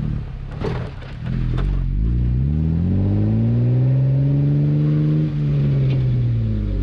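Jeep Wrangler JKU's engine and exhaust heard from under the vehicle while driving, the engine note rising as it pulls away, holding, then easing off near the end, over a steady rumble of tyres and driveline. Two short knocks sound in the first two seconds.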